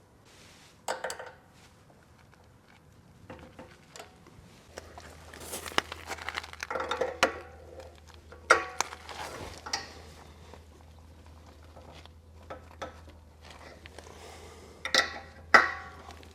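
Intermittent metallic clinks and knocks of tools and brass fittings as a propane hose is threaded and tightened onto an RV's Extend-a-Stay LP adapter. The loudest two knocks come near the end.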